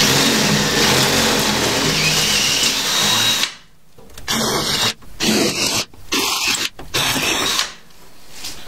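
Cordless drill with a 3/8-inch bit boring holes through metal diamond plate: one long run of about three and a half seconds, then, after a short pause, four short bursts that stop near the end.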